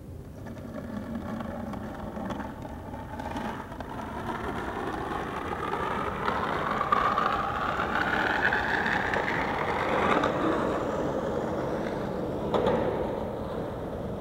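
Skateboard wheels rolling on concrete, a steady rolling noise that grows louder and rises slightly in pitch before easing off, with a single knock near the end.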